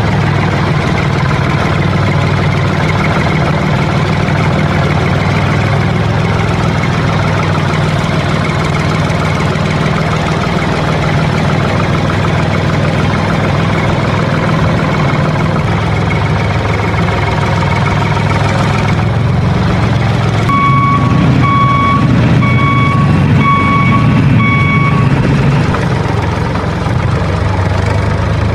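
Tractor engine running steadily at a low, even idle. About two-thirds of the way through, five short beeps sound about a second apart.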